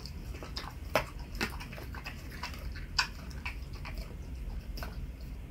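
Alaskan Malamute chewing a whole raw Cornish game hen, bones and all, with wet gnawing and a scatter of short sharp crunches; the loudest crunches come about a second in and about three seconds in.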